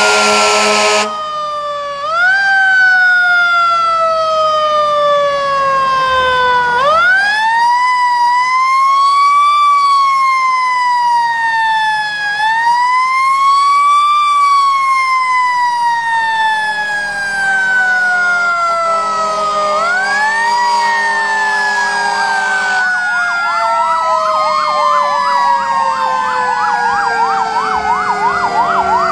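Fire truck sirens wailing, each rising quickly and falling slowly in pitch over several seconds, with two or more sirens overlapping. About two-thirds of the way through, a rapid yelp joins in. A loud horn blast cuts off about a second in.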